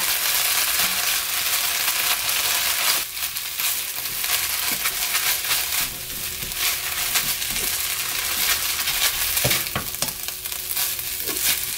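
Seasoned mulberry-leaf namul sizzling in a hot nonstick frying pan as a silicone spatula stirs and tosses it, with short scraping strokes against the pan over a steady sizzle.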